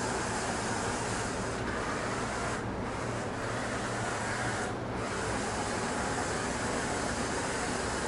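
Philips SmartPro Compact FC8776/01 robot vacuum running on a hard floor: a steady whirring hiss from its suction fan and brushes over a low hum. The hiss dips briefly twice.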